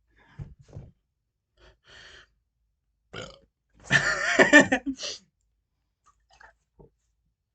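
A person burping: one loud, long burp about four seconds in, lasting about a second, after a few short quieter sounds. It is brought on by drinking Sprite.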